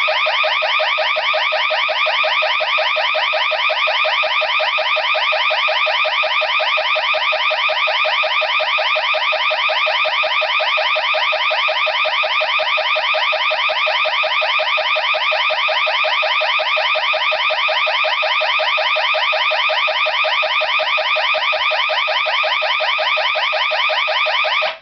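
Ademco 747F flush-mount security system siren sounding a loud, fast-warbling alarm tone for about 25 seconds, starting and cutting off abruptly.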